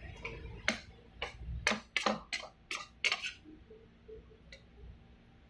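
Metal spoon clinking against a ceramic bowl while scooping lumpia filling, about seven quick clinks in the first few seconds and one faint one near the end.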